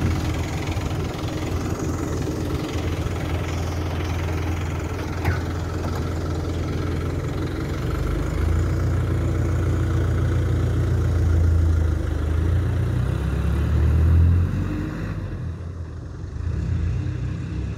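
Small yellow school bus's engine idling at the stop: a steady low rumble that swells a little for a few seconds in the middle.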